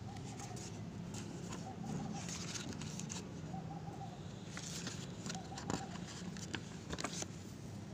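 Paper pages of a sticker book being turned and rustled, with a few short, sharp rustles. Faint bird calls repeat throughout.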